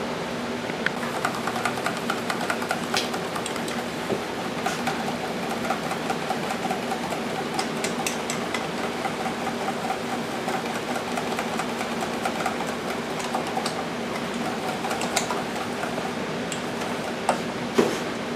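Steady hum of an electric fan under light, scattered clicks and taps of kitchen utensils being handled, with a louder clink near the end.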